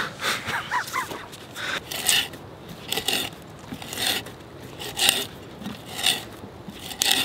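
Hand auger boring into a log, with a short rasp of the bit cutting wood about once a second as the handle is turned.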